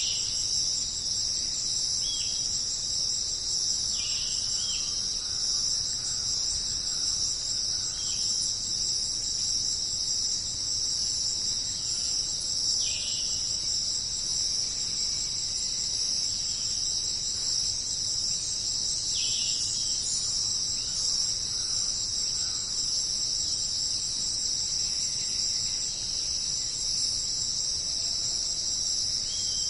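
Dense insect chorus, a steady high-pitched trilling, with brief downward-sliding chirps every few seconds.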